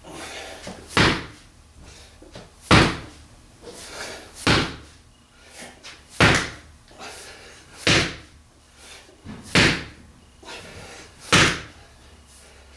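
Weighted D-ball (dead ball) slammed onto a rubber gym floor, again and again at an even pace: a heavy thud about every second and a half to two seconds, seven in all.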